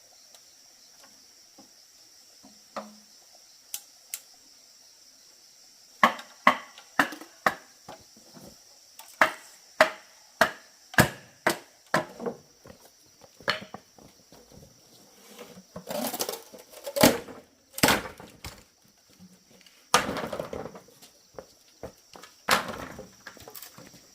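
A blade chopping wood with sharp strikes, about two a second for several seconds, then rustling scrapes and a few heavier blows.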